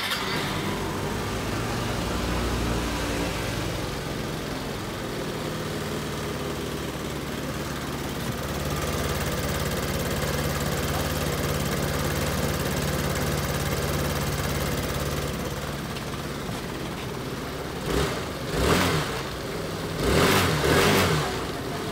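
Kymco Many 110 scooter's single-cylinder four-stroke engine starts and runs steadily at idle, with a few short blips of the throttle near the end.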